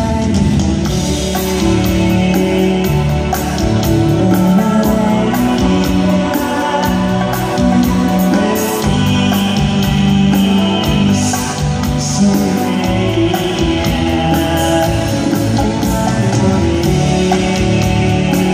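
Live band playing a song with singing, keyboards, electric guitar and drums, recorded loud from among the crowd.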